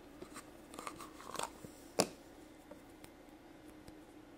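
Faint handling noise of a plastic Play-Doh can and its dough: a few small taps and clicks, then one sharper click about two seconds in, over a faint steady hum.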